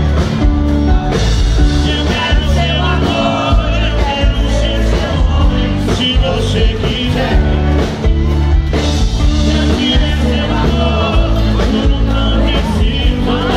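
Live sertanejo band playing with a male singer's voice over a strong, steady beat and heavy bass.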